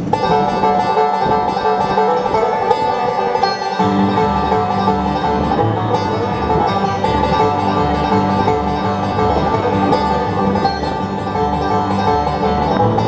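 Live bluegrass band playing an instrumental intro: fast-picked banjo over guitar, with a bass line coming in about four seconds in.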